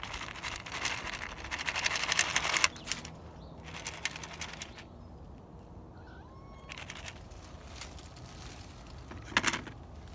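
Crinkling and rustling of a thin clear plastic tray of dry cat food being carried and handled, in noisy bursts with the longest in the first few seconds. A cat gives one short, faint meow about midway.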